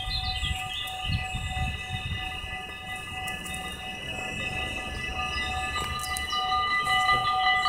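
Steady high tones of an electric train approaching the level crossing, growing louder towards the end as the crossing's warning bells start ringing with the red lights. Small birds chirp in the first few seconds.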